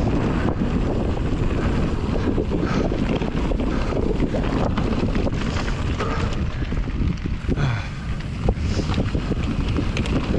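Wind buffeting the microphone over the steady rumble and rattle of a mountain bike rolling fast down a trail. About eight and a half seconds in the noise dips briefly and a sharp knock comes through.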